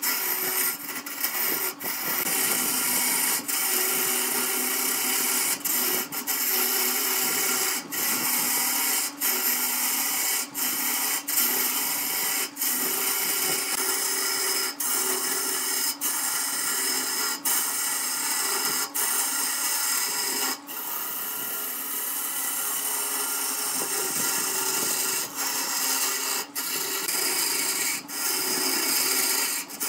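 Wood lathe spinning a glued-up wooden vase blank while a hand-held turning tool cuts into it: a steady rushing, scraping cut over the lathe motor's hum, broken by short dips every second or two.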